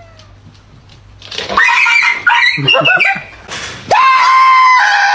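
A dog's loud, high-pitched crying. A run of wavering cries starts about a second and a half in, and one long held cry comes near the end, dropping in pitch just before it stops.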